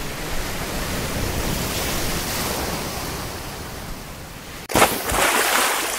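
Ocean surf sound effect: a steady wash of breaking waves, then a sudden break and a louder wave crashing about five seconds in.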